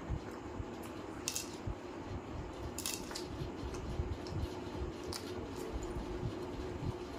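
Close-up eating sounds: chewing and lip smacking, with soft squelches of fingers tearing roti and scooping chicken curry, and a few sharp clicks scattered through.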